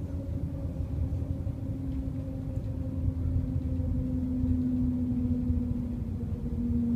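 Shanghai Maglev (Transrapid) train heard from inside the cabin while riding: a low rumble with a steady hum that drifts slowly lower in pitch.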